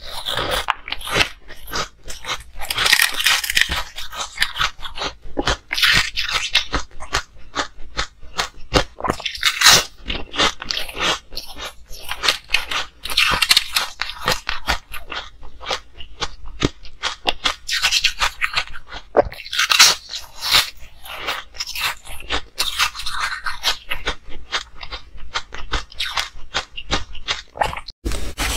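Hard ice being bitten and chewed, a dense run of sharp cracking and crunching. The bites come in irregular clusters, with a louder snap now and then.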